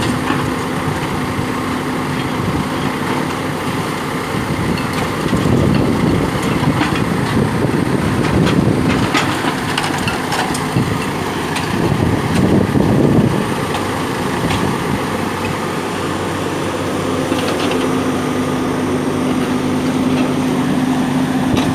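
Diesel engines of backhoe loaders running steadily while one breaks down a brick building, with rougher stretches of crumbling and clattering masonry in the middle.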